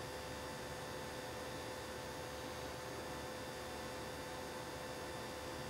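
Steady electrical hum with a faint hiss behind it, holding one level throughout.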